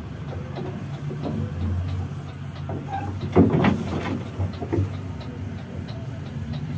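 Vehicle engine running with a steady low hum while driving in traffic, with a brief louder noise about three and a half seconds in.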